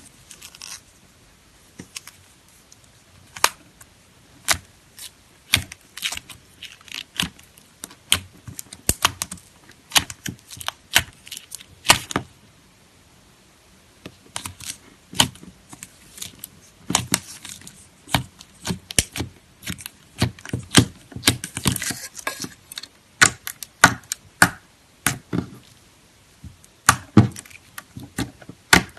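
Slime being squeezed, poked and stretched by hand, giving irregular sticky pops and clicks, with a brief pause about twelve seconds in and a denser crackling stretch later on.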